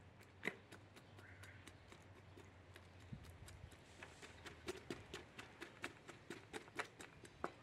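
Knife cutting up a raw whole chicken on a ceramic plate: a run of quiet, sharp clicks, irregular and several a second.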